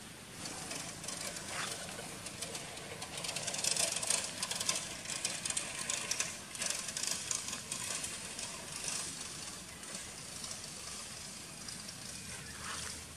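Leaves and thin branches rustling and crackling as macaques climb through the foliage, loudest a few seconds in.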